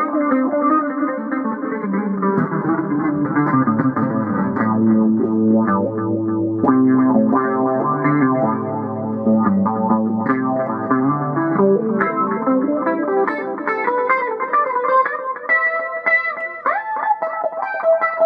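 Electric guitar played on a clean tone: lower chord-based passages, then from about twelve seconds in higher single-note lines, with a bent note near the end.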